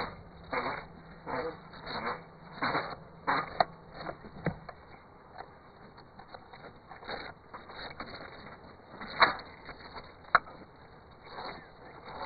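Bricklaying at a brick wall: a run of short scrapes of a trowel and mortar on brick, close together at first and then sparser, with two sharp knocks of brick or trowel later on.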